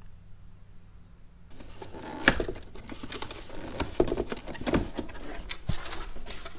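Cardboard box, packing peanuts and a foam sheet being handled and shifted, rustling and clattering irregularly from about a second and a half in, with a sharp knock a little after two seconds.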